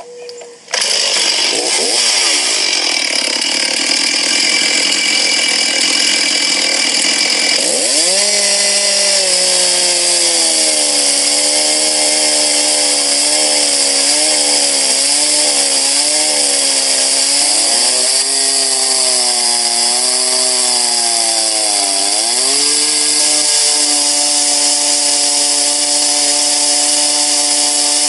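Two-stroke chainsaw on a chainsaw mill, running at full throttle while ripping a log lengthwise into a board. The engine pitch sags and recovers as the chain loads up in the cut, with one deep sag late on.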